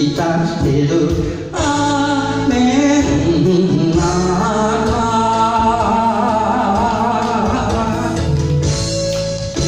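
A singer performing a Japanese song into a handheld microphone over backing music, the voice holding long, wavering notes through the middle.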